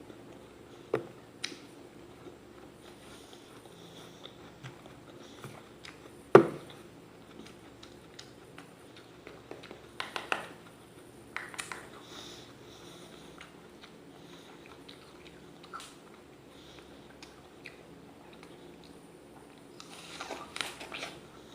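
Crisp raw apple being bitten and chewed close to the microphone: scattered sharp crunches, the loudest about six seconds in, a cluster around ten seconds, and a quick run of them near the end.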